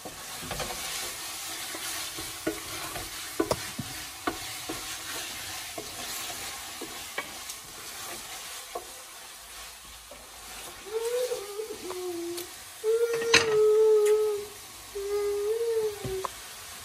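Chicken sizzling in an aluminium pressure cooker while a wooden spoon stirs and scrapes it, with small clicks and knocks of the spoon against the pot. From about two-thirds of the way in, several drawn-out whining tones come and go, the loudest sounds here, with a sharp knock among them.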